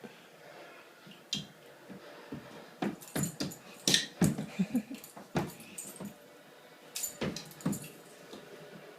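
A dog playing with her bone: a flurry of sharp knocks and clacks, the bone and claws hitting the floor as she pounces, lasting about five seconds from a few seconds in.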